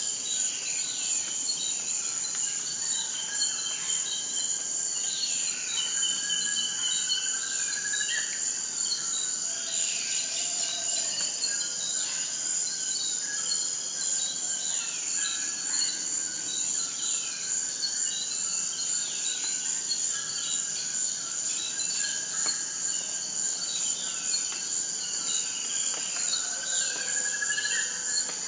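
A steady, high-pitched trilling of insects, with birds calling over it again and again in short, falling notes and now and then a rising one.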